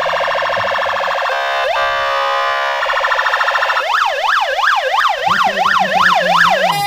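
Fire engine's electronic siren cycling through its tones: steady held tones with a quick rising glide, then a fast up-and-down yelp of nearly three sweeps a second.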